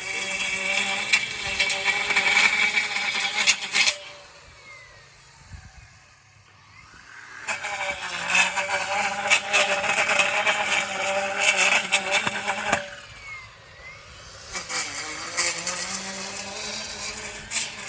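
Ego battery multi-tool's edger attachment running in three bursts of about four to five seconds with pauses between them. Its motor whines steadily as it spins up and down, with many sharp ticks of the blade cutting along the lawn edge.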